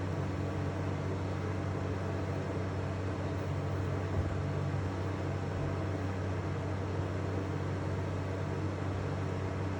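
Steady low mechanical hum, with one faint knock about four seconds in.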